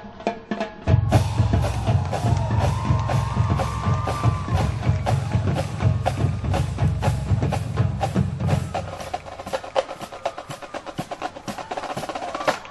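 Marching band percussion passage: a drumline with bass drums playing under a steady run of sharp wood-block-like clicks, with a faint melodic line above. About two-thirds of the way in the bass drums drop out, leaving the clicks and lighter drums.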